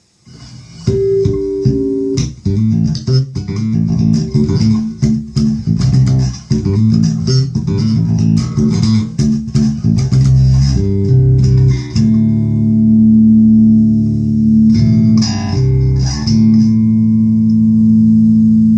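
Alembic Series 2 electric bass being played: a busy run of plucked notes with sharp, bright string attacks, then a long held low note about two-thirds of the way through, a short phrase, and another long held note near the end.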